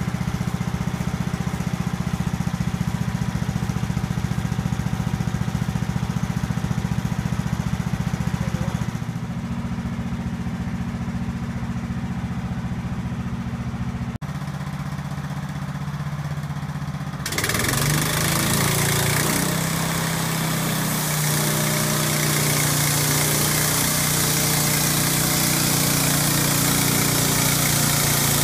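Engine of a Norwood portable bandsaw mill running steadily. About two-thirds of the way through it revs up and gets louder, with a much stronger hiss over the engine hum.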